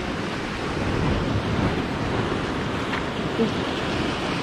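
Surf breaking and washing over the rocks at the foot of a concrete breakwater: a steady rush of water, with wind on the microphone.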